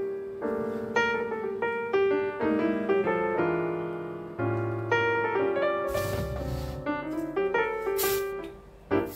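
Solo piano background music playing a gentle melody. A few short rustling noises come through in the last few seconds.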